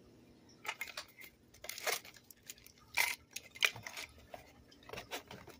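Unboxing handling sounds: a small plastic zip bag rustling, with several scattered light clicks and knocks as parts of a tufting gun kit are moved about in a foam-lined box.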